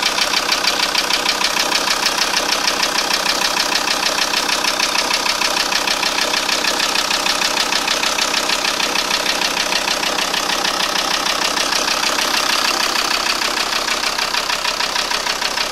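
Volkswagen T4 2.5 TDI (AXG) five-cylinder diesel engine running steadily at idle with a fast, even rattling clatter; this rattle (klappern) is the noise the owner is asking about.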